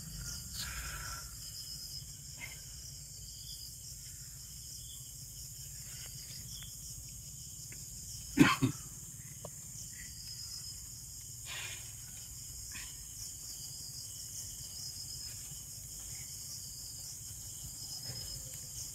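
Crickets and other night insects chirping steadily, with a loud double knock about halfway through.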